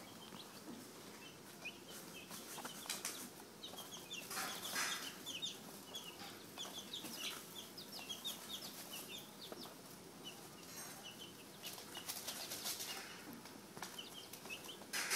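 A brood of 10-day-old American Dominique chicks peeping, with many short, high chirps overlapping. A few brief bursts of rustling and fluttering come through as the chicks move about in the wood shavings.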